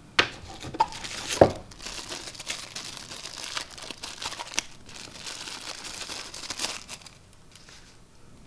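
Thin protective wrapping crinkling and rustling as it is unwrapped from a small wireless microphone unit by hand, with a few sharp clicks in the first second and a half. The crinkling stops about seven seconds in.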